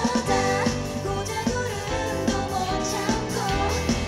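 Live pop-rock band performance: a woman singing a Korean-language song over electronic keyboard, drums and electric guitar.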